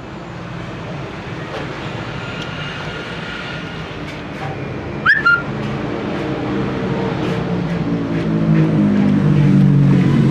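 Engine running steadily, growing louder and rising slightly in pitch toward the end, with one short high chirp about five seconds in.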